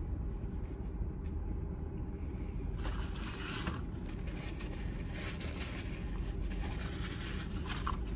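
Paper napkin rustling in the hands, in two spells about three seconds in and again a second or two later, over a steady low rumble in a car's cabin.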